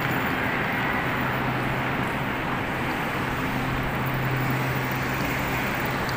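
Steady railway-station background noise: an even rushing sound with a constant low mechanical hum underneath, unchanging throughout.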